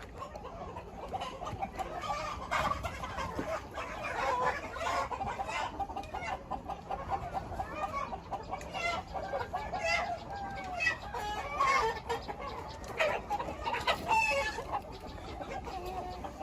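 A flock of chickens clucking, with many calls overlapping and a few louder, sharper calls standing out.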